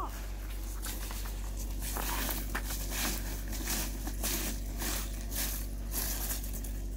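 Small plastic wheels of a kid's ride-on spinner scooter scraping and swishing over wet, gritty concrete and slush, in a string of short rough swishes.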